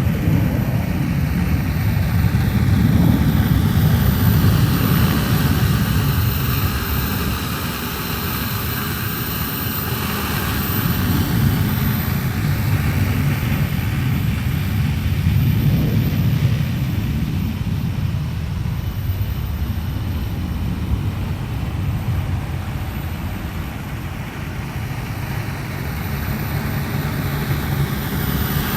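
A 15-litre agricultural spraying drone's rotors whirring in flight over a steady low rumble, the whine falling and rising in pitch several times as it passes back and forth.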